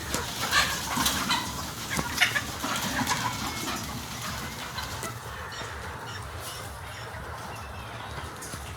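A flock of Sonali hens clucking and calling, busiest in the first few seconds and quieter after.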